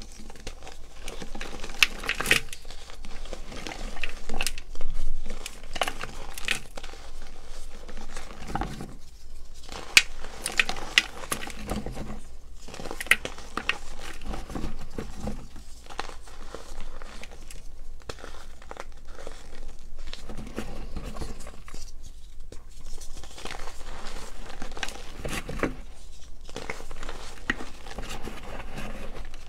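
Blocks of gym chalk crushed and crumbled between the fingers, giving a run of dry, irregular crunches and crackles with short pauses between squeezes.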